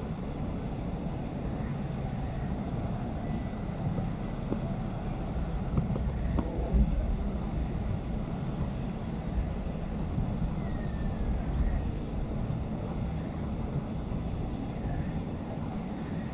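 Steady low rumbling background noise, with no clear single source standing out.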